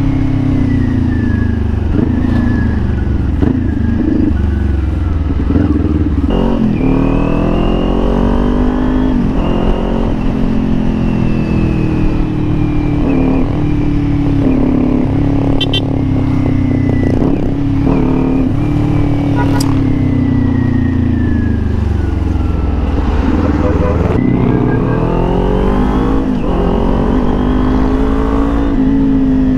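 Kawasaki Ninja 400's parallel-twin engine running under way, its revs climbing and dropping several times as the rider accelerates, shifts and slows.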